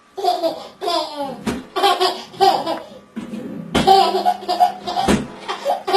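A child laughing hard in repeated high-pitched bursts, with two sharp knocks, about a second and a half in and about five seconds in.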